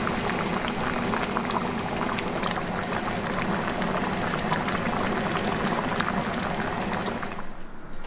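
A pot of stew bubbling at a steady boil, with a dense crackle of many small bursting pops; it dies down near the end.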